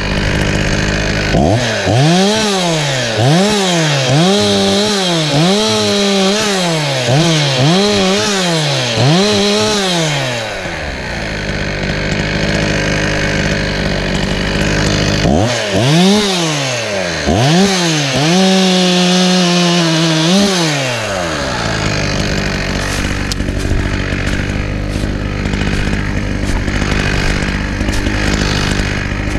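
Chainsaw engine revved in a run of short throttle blips, about one a second, then after a lull revved again and held at full speed for a couple of seconds, as when cutting wood; idling between the bursts.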